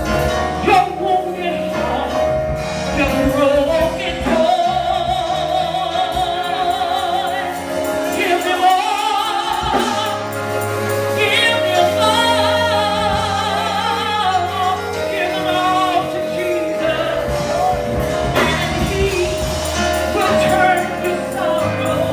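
Gospel song: a singer holds long, wavering notes over a steady instrumental accompaniment, with no clear words.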